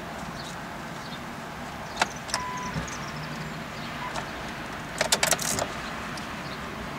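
Clicking in a 2007 Dodge Caliber as the key is turned with a dead battery: two single clicks with a short electronic beep, then a quick run of about six clicks a few seconds later, and the engine does not crank.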